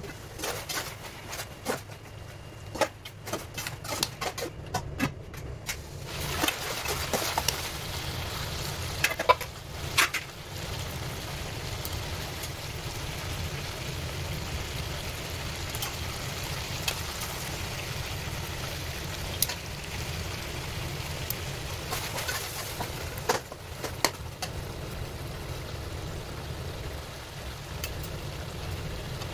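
Mutton and tomatoes sizzling steadily in an aluminium karahi, with metal tongs and a spatula clinking and scraping against the pan. The first few seconds are mostly sharp metal clicks and clanks as the lid is handled and taken off, and the sizzling takes over from about six seconds in.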